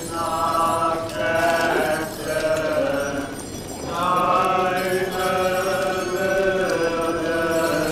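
Many voices of a procession chanting together in unison, held phrases about a second long on a few pitches.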